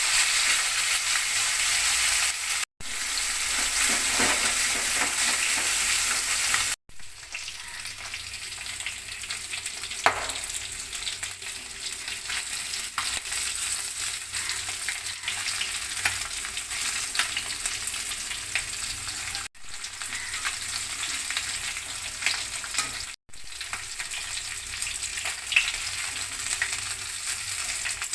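Pieces of rohu fish, rubbed with salt and turmeric, sizzling as they fry in hot mustard oil in a kadai, with a few sharp pops. The sizzle cuts off abruptly for an instant four times and is quieter after about seven seconds.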